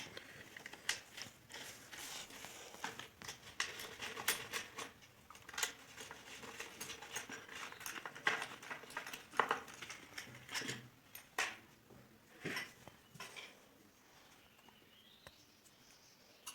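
Irregular clicks and light knocks of hand tools and metal parts as the carburetor is taken off a mower's small engine. The clicks die away about three-quarters of the way through.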